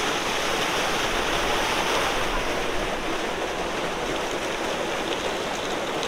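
Steady rush of a small waterfall cascading over rocks into a pool.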